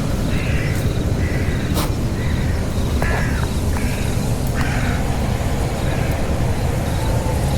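An animal calling again and again in short, harsh notes, about seven calls a second or so apart, over a steady low rumble, with a few sharp clicks in between.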